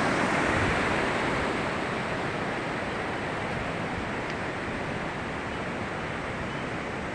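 Steady rushing of a large stream of fast water, an even hiss that eases slightly over the first couple of seconds.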